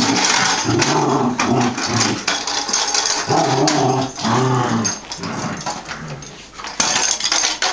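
Collie puppy growling and grumbling in play, a string of short pitched growls with quieter stretches around the middle.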